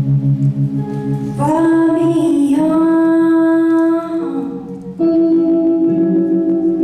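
Woman singing a gospel song over her own electric guitar, holding long notes. The guitar plays alone for about the first second and a half before the voice comes in, and the singing breaks briefly near the middle before resuming.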